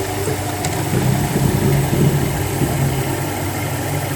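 Blade-sharpening grinder running, its wheel grinding along a chipper blade as the head traverses up and down, a steady machine hum that grows louder for a couple of seconds in the middle. The wheel is taking the chips and nicks out of a damaged, blunt blade.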